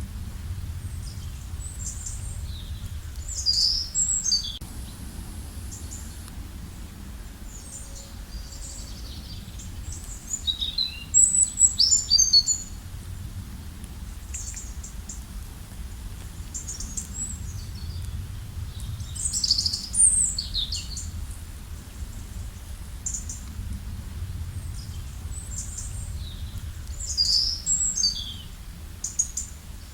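Songbirds singing quick, high phrases of rising and falling notes, a burst roughly every eight seconds. Underneath is a steady low rush, the running water of the forest stream.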